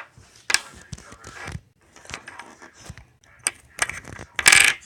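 Irregular clicks and clatter of small objects being handled, with a louder rattling burst near the end.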